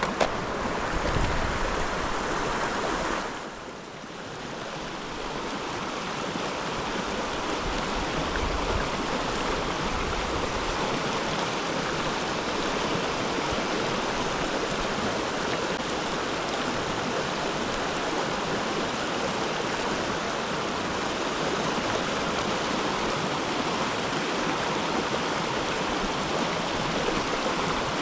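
Steady rushing of a flowing creek. It drops away briefly about three seconds in, then swells back up over the next few seconds and holds steady.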